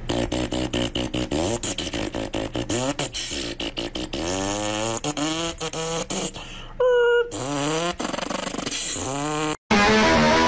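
A person making car engine noises with their mouth while playing with a toy car: a crackling, popping burble, then the pitch sweeping up again and again like an engine revving through the gears, with a short held note about seven seconds in. It cuts off suddenly near the end, and music with guitar begins.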